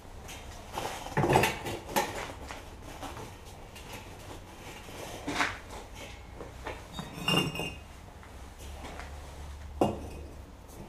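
A handful of separate sharp knocks and clinks of hard pieces against a steel oil barrel and the firebrick laid inside it, the loudest about a second in and another near the end.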